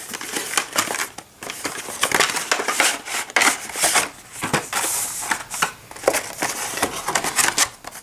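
A cardboard deck box being opened and a clear plastic blister insert pulled out and handled: irregular crackling and rustling of stiff plastic and card.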